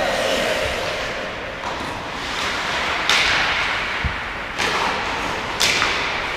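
Hockey sticks and pucks on the ice: a handful of sharp cracks, the loudest about three seconds in and again near the end, each ringing out in the rink hall, over the steady scrape of skates on ice.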